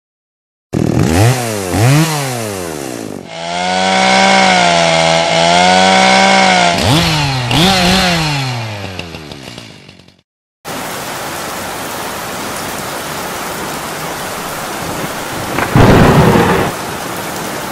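A chainsaw revving: two falling sweeps, then running steadily with a wavering pitch, revving again and dying away. After a short gap comes steady heavy rain, with one loud crash about 16 seconds in.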